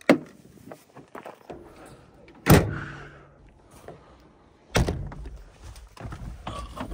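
Pickup truck tailgate being slammed shut about two and a half seconds in, a loud metal bang with a short ring after it, followed near five seconds by another heavy thunk from the truck's body, with lighter knocks in between.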